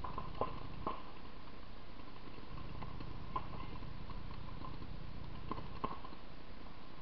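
Sporadic sharp pops of paintball markers firing at a distance, about half a dozen scattered single shots, over a steady low rumble.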